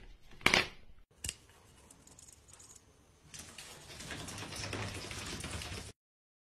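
Two sharp knocks near the start, then, about three seconds in, a cat's claws scrabbling fast on a tiled floor for a couple of seconds, cutting off suddenly.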